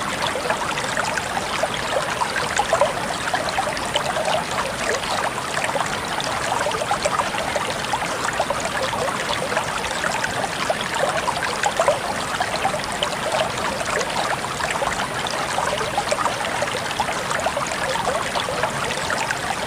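Small waterfall running steadily, a continuous rush of falling and splashing water.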